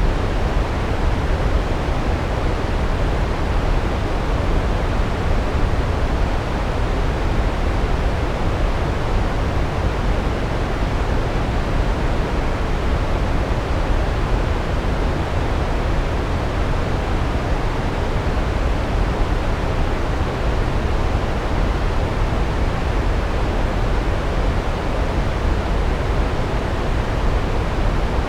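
Large waterfall crashing steadily, a dense unbroken rush of water with a deep low rumble.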